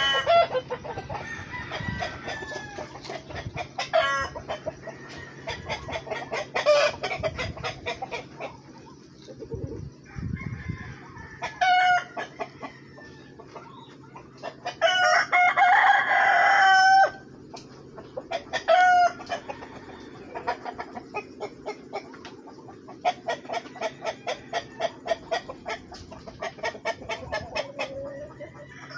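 Backyard flock of Rhode Island Red, Black Australorp and Brahma chickens clucking continuously in short repeated calls, with one loud, longer call of about two seconds near the middle, most likely a rooster crowing.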